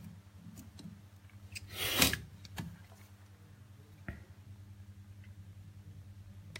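Small handling noises from opening a smartphone: a brief rustling scrape about two seconds in, and a couple of small clicks afterwards, over a steady low hum.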